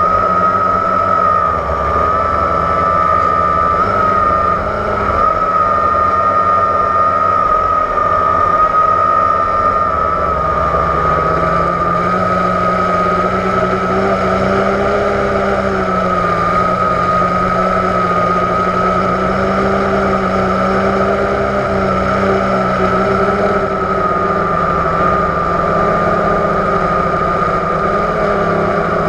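Blade 350 QX quadcopter's four electric motors and propellers whining steadily, recorded close up from the camera on the airframe. The pitch wavers slightly as the throttle changes.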